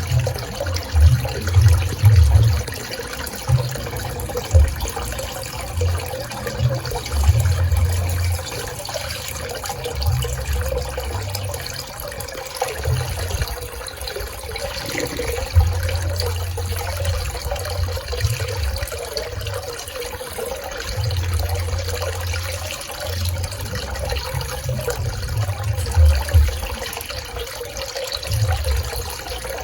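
Pool water splashing and trickling steadily, with irregular low rumbles coming and going.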